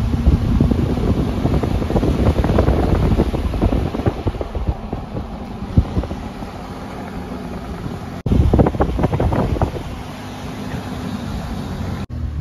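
Car road noise with wind buffeting the microphone: a steady low rumble under gusty bursts. The sound cuts off abruptly and starts again about eight seconds in and once more near the end.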